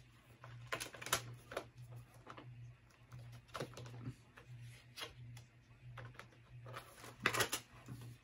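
Clear plastic multi-disc DVD case being handled: irregular plastic clicks and snaps as the case and its disc trays are worked, with a denser burst of clicks about seven seconds in.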